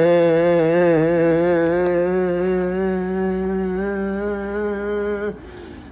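A man imitating a heavy truck engine with his voice: one long held droning tone that wavers at first, then steadies and creeps slightly upward. It cuts off about five seconds in, followed by a short falling glide.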